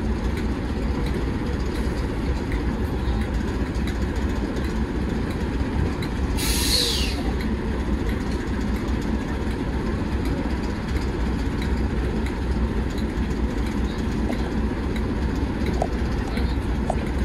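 BR Class 08 diesel shunter's English Electric six-cylinder diesel engine idling steadily at close range. A brief sharp hiss cuts in about six seconds in.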